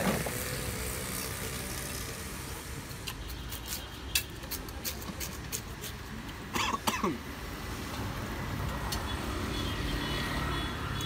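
Steady hum of street traffic with motorbikes passing. Light clicks, typical of a spoon working a plastic bowl of shaved ice, come about three to five seconds in. A short, louder, unidentified sound comes about seven seconds in.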